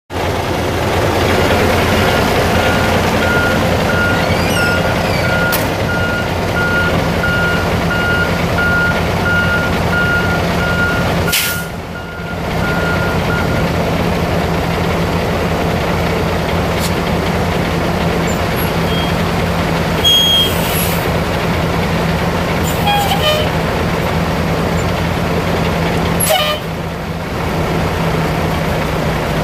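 Cummins 14-litre inline-six diesel in a Ford L9000 semi truck, idling steadily. A repeated beeping tone sounds over the first dozen seconds. Two brief bursts of noise come later.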